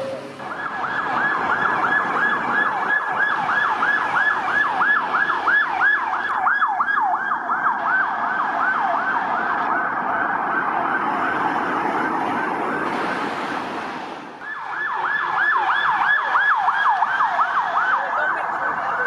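Romanian police car's electronic siren sounding a fast yelp, its pitch sweeping up and down about four times a second. It cuts out briefly about two-thirds of the way through, then starts again.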